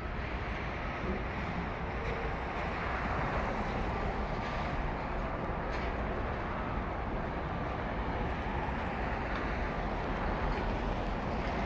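Steady street traffic noise: passing cars and the general rumble of a busy boulevard.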